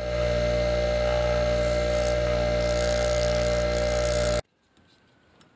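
Bench grinder running while the ends of used 18650 lithium cells are held to the wheel to grind off old tab remnants, the grinding hiss coming and going over the steady motor hum. It cuts off suddenly about four and a half seconds in, leaving only faint handling ticks.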